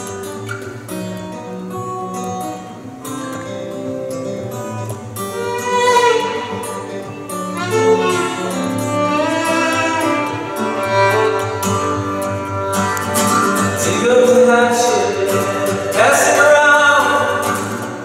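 Bowed violin played fiddle-style over strummed acoustic guitar in a bluegrass-style duo; the fiddle line gets louder and busier about six seconds in.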